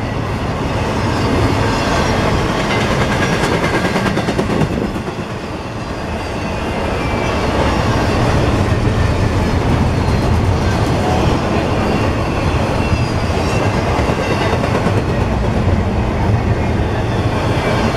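CSX intermodal freight train passing: double-stack container cars and trailer-carrying flatcars rolling by, their steel wheels running on the rails in a steady loud noise that dips briefly about five seconds in, then builds back up.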